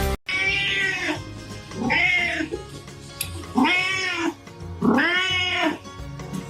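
A cat meowing four times, long drawn-out calls that each rise and fall in pitch, over background music.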